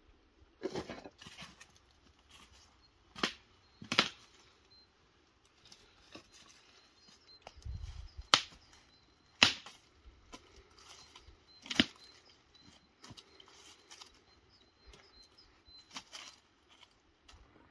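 Dry dead branches and twigs snapping, about seven sharp cracks at uneven intervals, over the rustle of footsteps and handling in dry leaf litter.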